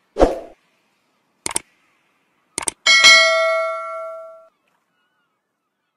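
Subscribe-button animation sound effects: a short thump, a click, a quick double click, then a notification bell ding that rings out for about a second and a half.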